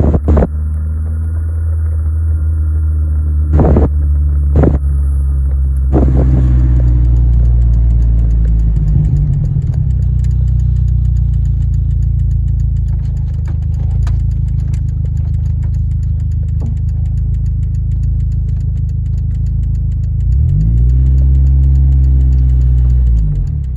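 Dodge SRT-4's turbocharged 2.4-litre four-cylinder engine running while the car is driven, after its rebuild. There are a few sharp knocks in the first six seconds, and near the end the engine note rises and then falls as it is accelerated and eased off.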